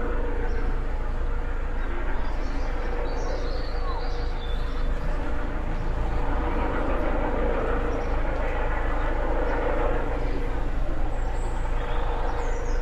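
Police helicopter circling overhead: a steady drone of rotor and engine with a constant low throb and a mid-range hum, swelling slowly in the middle of the stretch.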